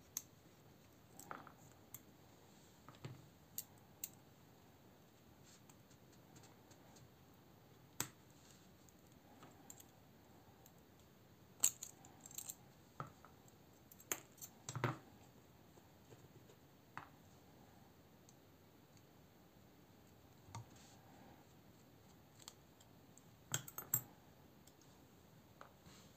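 Scattered light clicks and taps of small metal parts and a Torx screwdriver as an Eafengrow EF966 folding knife is taken apart, screws, washers and liners handled and set down on a silicone mat. The louder clicks come around the middle and in a cluster near the end.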